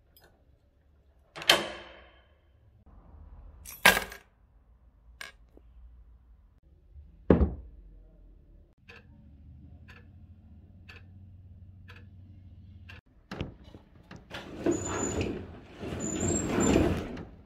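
Door lock and latch clicking and a door knocking shut in a few sharp strokes, then even footsteps of a hard-soled shoe on a wooden floor, about one step every 0.7 s. Near the end, a louder rushing noise with thin high squeaks.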